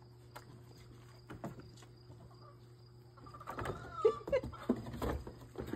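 An animal calling: quiet at first, then about three seconds in a high call that bends up and down, followed by shorter, louder calls and a few sharp clicks.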